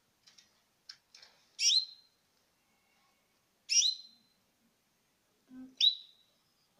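Canary nestlings begging for food while being fed from a syringe: three loud, high chirps about two seconds apart, with faint short peeps between them.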